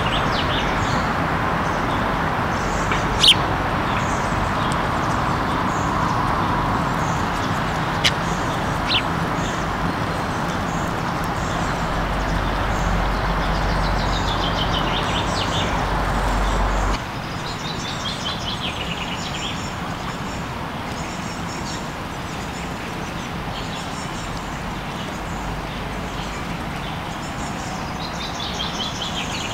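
Small songbirds chirping in repeated quick descending trills over a steady background hum. The hum drops abruptly about halfway through. Two sharp clicks come early on, one at about three seconds and one at about eight.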